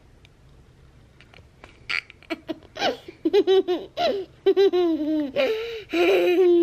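A young boy laughing hard in repeated bursts, starting about three seconds in after a couple of quiet seconds.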